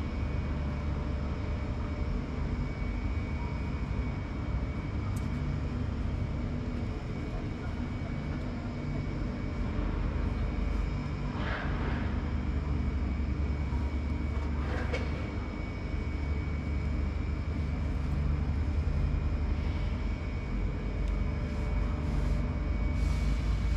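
Top-loading washing machine running: a steady low motor drone with a faint high whine over it, and a couple of brief swishes midway.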